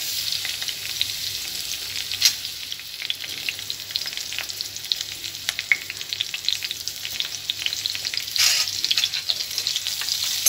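Sliced onion and a green chili sizzling and crackling in hot olive oil in a metal kadhai, stirred with a steel ladle that scrapes the pan, with louder scrapes about two seconds in and near the end.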